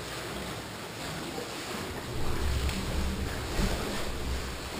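Sea swell washing and sloshing against the rock walls at the mouth of a sea cave, a steady hiss of moving water with deeper low surges from about two seconds in.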